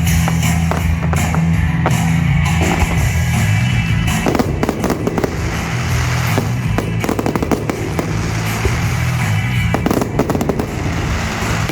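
Fireworks display set to music: rapid bangs and crackling from aerial shells over loud rock music with a heavy bass line. The crackling grows denser about four and a half seconds in.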